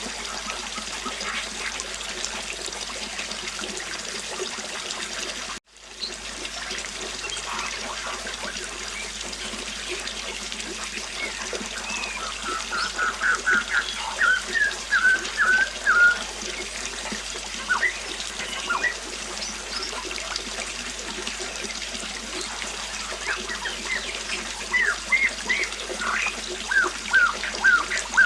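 River water flowing steadily, with a songbird singing over it: a run of quick repeated chirps about halfway through and more short chirps near the end. The sound drops out for an instant about six seconds in.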